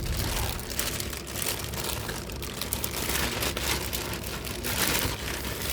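Plastic bag crinkling and rustling around a tennis racquet as it is handled, a steady run of small crackles.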